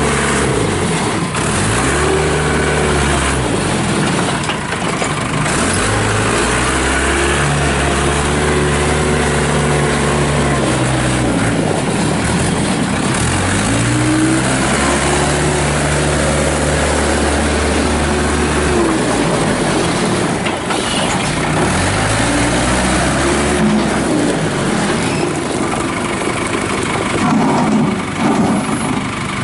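Case 580 Super E backhoe loader's Cummins diesel engine being worked, revving up, holding and dropping back to idle about five times in a row, with occasional clanks.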